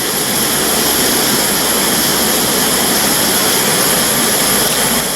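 Canister gas stove burner on a butane-propane mix, running wide open at full blast: a loud, steady rushing flame noise.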